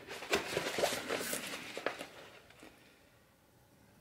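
Coated packraft fabric rustling and crinkling as it is handled and pressed into line along a seam, with small ticks and scrapes. It dies away about halfway through.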